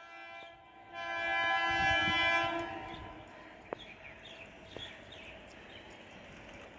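Electric local train's horn sounding once, a steady multi-tone blast of about two seconds that fades out. Two sharp clicks follow a little later.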